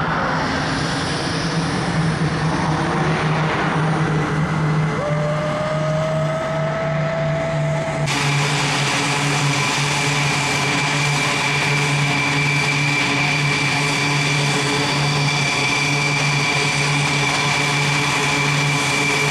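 E-2C Hawkeye's twin turboprop engines running with a steady, deep propeller hum. About eight seconds in, the sound changes abruptly to a fuller, louder drone.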